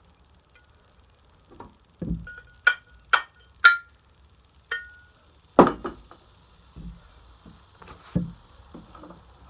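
Hammer blows on steel, striking a punch and axe head: three sharp ringing strikes about half a second apart, then a lighter tap, one loud strike and a few duller knocks, working the last of the old wooden handle out of the axe eye.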